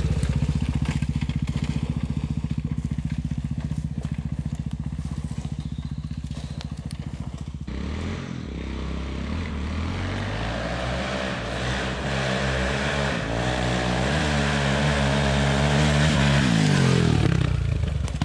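ATV (quad bike) engine running at low, even revs with a steady putter, then from about eight seconds in revving up and down, climbing higher toward the end.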